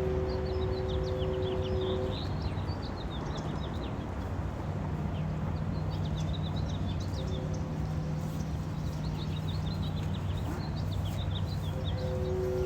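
Many small birds chirping and twittering, the calls coming in dense bursts with short lulls between, over a steady low rumble. A steady two-note hum sounds for the first couple of seconds and again near the end.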